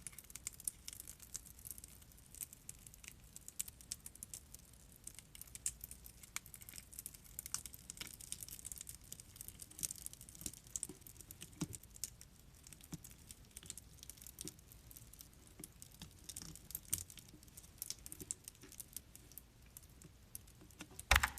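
Close-miked crinkling, light tapping and clicking of plastic candy packaging being handled and opened, with a single louder knock near the end.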